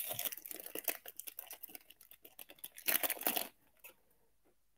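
Foil trading-card pack wrapper crinkling and tearing as it is pulled open by hand. Dense crackling at first, then a louder burst of crinkling about three seconds in.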